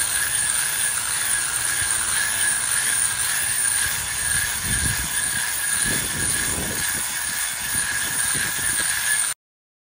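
Handheld angle grinder running with its disc held against the stone, a steady high whine over a gritty grinding hiss. The sound cuts off abruptly near the end.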